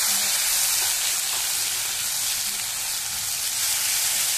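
Wet onion-tomato-garlic paste frying in hot oil in a kadhai: a loud, steady sizzle as the watery paste hits the oil.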